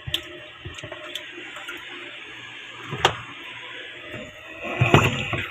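Water running steadily out through a washing machine's drain valve, with a sharp click about three seconds in and a louder stretch near the end. The drain's rubber seal is clogged with dirt and no longer seats, so the water keeps flowing out.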